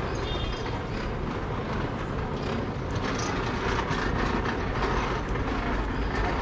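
Steady rumble and noise of a moving vehicle, growing a little louder about three seconds in.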